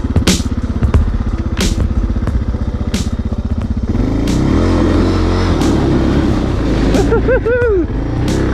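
Suzuki DR650 single-cylinder motorcycle engine running while the bike is ridden. For about the first four seconds a steady beat of music lies over it. After that the engine is heard alone, and its pitch rises and falls in a few quick throttle blips near the end.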